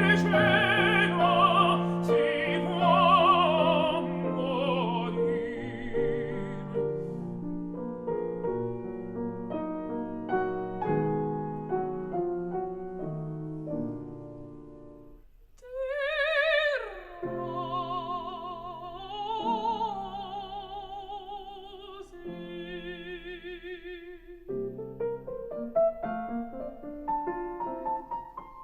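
Classical singing with wide vibrato over piano accompaniment. About fifteen seconds in the music changes to a new passage of long-held sung notes, and near the end the piano plays climbing notes on its own.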